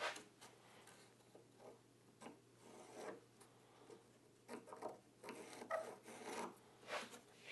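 Faint, irregular scratching strokes of a pencil tracing along a paper template on a cedar board, with paper and hands rubbing against the wood. The strokes come closer together and run longer in the second half.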